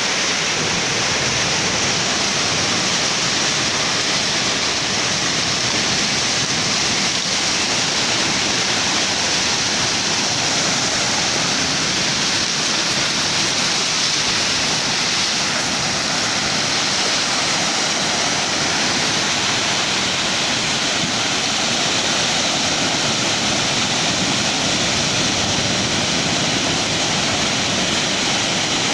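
Steady rushing roar of ocean surf, loud and even, with no separate wave crashes standing out.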